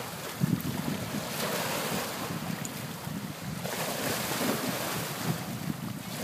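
Small bay waves washing in and out over shoreline boulders, a steady rushing of surf that swells and eases, with wind buffeting the microphone in low rumbles.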